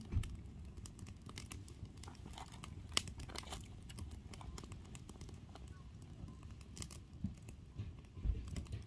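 Firewood burning in a metal fire-pit bowl, crackling with irregular pops, the sharpest about three seconds in, over a steady low rumble.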